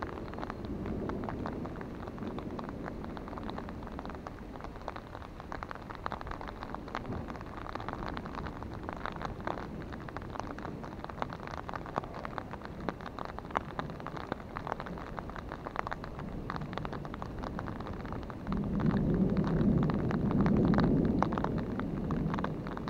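Rain falling on an umbrella held over the microphone, heard as a dense spray of small drop hits. A low rumble of thunder comes in about three-quarters of the way through and is louder than the rain.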